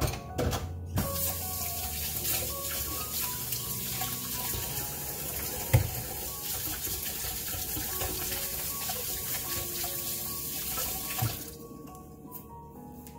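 Kitchen tap running into a sink in a steady stream. It is turned on about a second in and shut off near the end, with a knock about halfway through.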